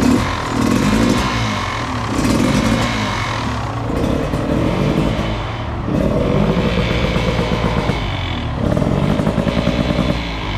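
Beta RR 300 two-stroke enduro motorcycle's single-cylinder engine revving, its pitch rising and falling back several times.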